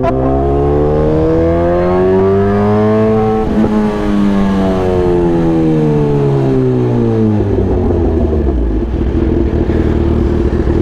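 Sport motorcycle engine heard from the saddle, revving up in pitch for about three and a half seconds, then winding down smoothly as the throttle comes off. From about seven seconds in it settles to a low, uneven rumble.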